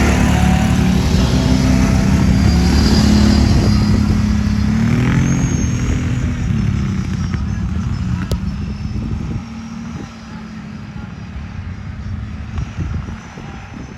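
A motor vehicle's engine running loudly close by, its pitch rising and falling briefly about five seconds in, then dropping to a lower level after about nine and a half seconds.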